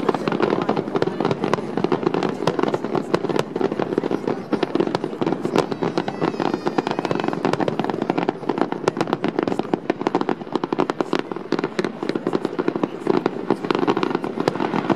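Fireworks display going off continuously: a dense, rapid run of bangs and crackles with no break.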